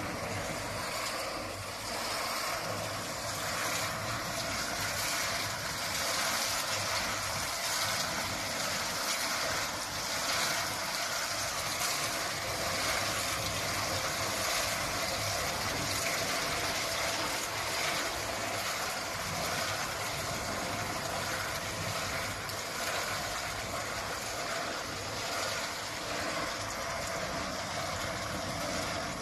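Potato chip seasoning machine running: its perforated stainless-steel drum rotating as the chips tumble through it, a steady hissing whir with a faint low hum.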